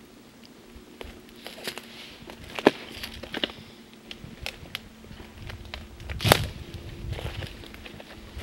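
Footsteps crunching through dry leaf litter and twigs on a forest floor, with scattered crackles and sharp twig snaps; the two loudest snaps come about two and a half and six seconds in.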